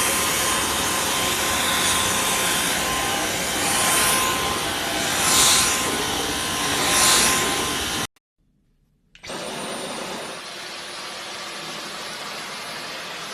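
Dyson V12 Detect Slim cordless stick vacuum running: a steady rush of air with a thin high whine, swelling briefly three times. It cuts off about eight seconds in, then after a second of silence runs again, noticeably quieter.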